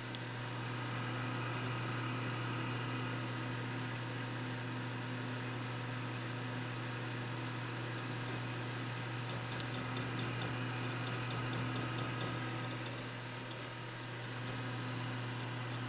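WD Caviar Blue 1 TB SATA hard drive running with a steady hum, and from about ten seconds in a quick run of light clicks, about a dozen over three seconds. This is the extraneous knocking and crunching that appeared while formatting a drive with many slow-reading and error sectors, the sign of a failing drive.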